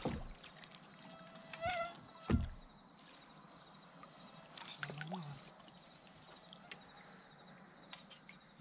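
Steady high-pitched insect chirring, with a sharp knock about two seconds in and a few faint ticks and handling sounds from a fishing kayak and its tackle. Two short, low, voice-like sounds come about two and five seconds in.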